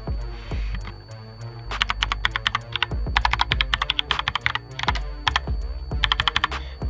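Logitech POP Keys mechanical keyboard being typed on in quick runs of keystrokes, a satisfying click with each press, starting about two seconds in.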